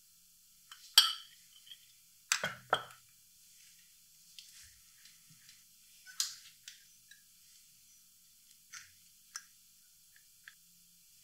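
Metal spoon clicking and clinking on dishware as ground spices are spooned into a small ceramic bowl. About a dozen separate light taps with quiet gaps between them, the sharpest about a second in and a close group of three around two and a half seconds.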